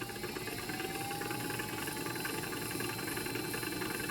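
3D-printed axial-flux brushless DC motor running and spinning a three-phase generator through a drive shaft: a steady mechanical whir. A whine in it rises slightly in pitch over the first second and a half, then holds steady.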